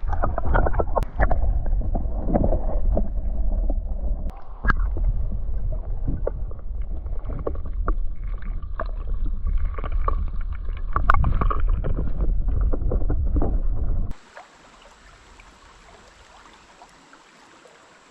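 Canoe under way on a river: a loud, muffled rumble of water and wind with scattered knocks of paddle and hull. About fourteen seconds in it cuts to a quiet, steady hiss of flowing water.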